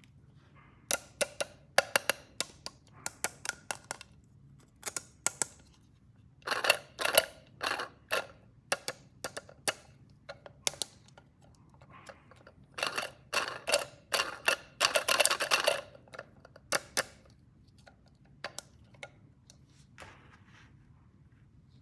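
Hard plastic toy pieces being handled, with irregular sharp clicks and short clattering rattles in several bursts, the busiest about 13 to 16 seconds in.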